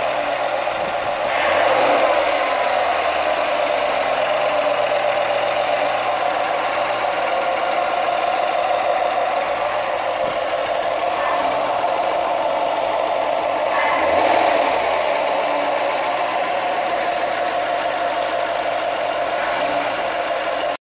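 2018 Chevrolet Corvette's 6.2-litre V8 idling steadily with the hood open, revved briefly twice, about 2 seconds in and again about 14 seconds in, each time rising and settling back to idle. The sound cuts off just before the end.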